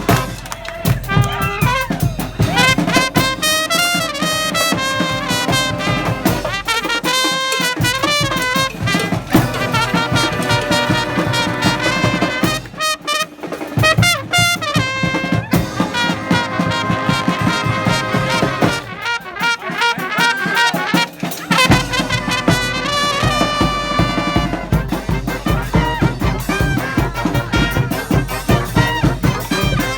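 A live street marching band playing a march, horns carrying the tune over drums. The low end drops out three times for a second or two while the horns keep playing.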